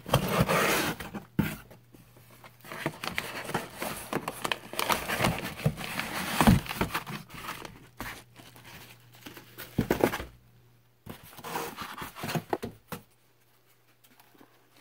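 A cardboard box and its kraft-paper packing being handled: rustling and crinkling in irregular bursts, with a few knocks. It goes quiet over the last couple of seconds.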